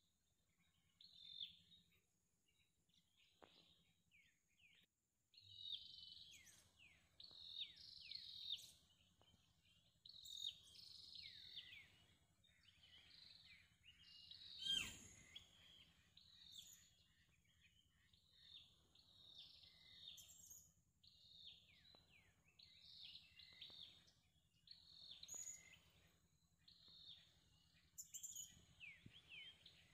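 Faint bird calls: short down-slurred chirps repeated about once a second, over a faint steady high whine, with one sharp click about halfway through.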